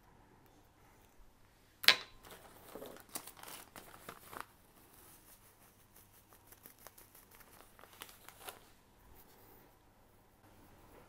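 Thin paper or plastic sheet crinkling and tearing as it is handled and pressed down by hand, with one sharp snap about two seconds in, then a flurry of rustling and lighter scattered ticks.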